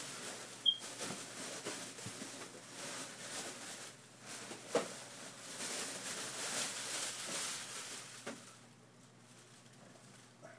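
Handling noise as the side cover of a computer case is pulled off: rustling and scraping with scattered clicks, a sharp metallic click with a short ping about a second in, and a knock near five seconds in, quieter after about nine seconds.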